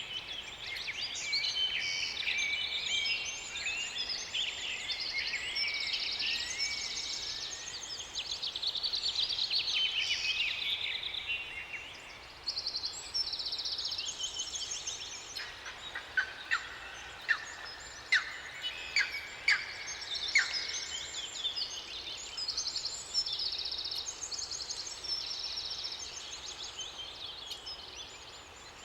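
Several songbirds singing at once: overlapping high trills, chirps and whistled phrases, with a run of sharp, loud single call notes in the middle of the stretch.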